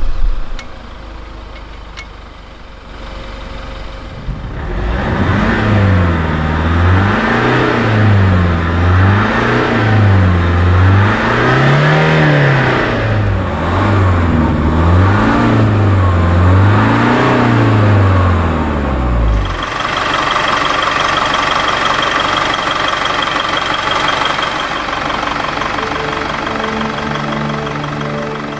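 Land Rover Defender D240's Ingenium diesel engine, just started and idling, then revved in a series of about six or seven blips, its note rising and falling with each. After about 19 seconds the revving stops and a steady whir is left, with music coming in near the end.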